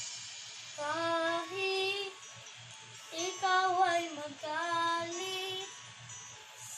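Child's singing voice carrying a wordless melody in a few held, sliding phrases over a faint pop backing track with a soft steady beat.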